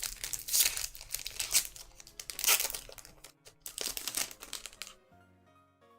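Plastic booster pack wrapper of a Pokémon trading card pack crinkling and tearing as it is ripped open, in repeated crackly bursts for about three seconds, then softer rustling. Faint background music comes in near the end.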